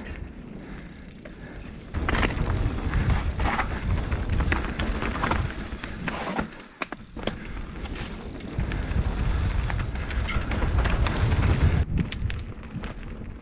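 Mountain bike riding down a rocky dirt singletrack, heard from a helmet camera: wind rumbling on the microphone with the clatter of tyres and bike over stones and roots. It gets loud about two seconds in, dips briefly around the middle, and drops off near the end.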